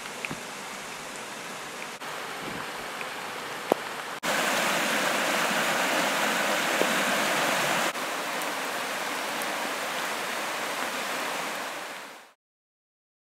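Rain-swollen creek rushing and churning over rocks, a steady rush of water that gets louder about four seconds in and eases slightly near eight seconds. The sound fades out shortly before the end.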